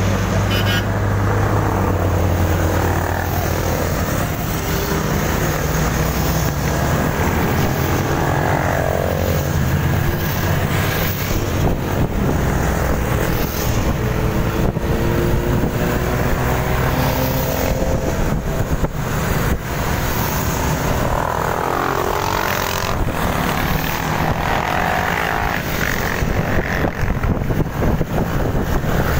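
A large group of motorcycles riding together on a road. Their engines run with tones that rise and fall as the riders change speed, over a steady low rumble of traffic.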